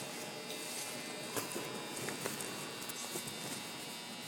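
Steady electrical buzz and hum with several high, thin tones, broken by a few sharp clicks about a second and a half and two seconds in.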